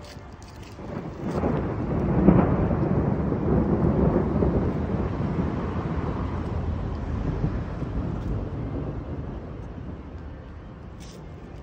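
Rolling thunder: a low rumble swells about a second in, is loudest just after two seconds, then rolls on and slowly fades over several seconds.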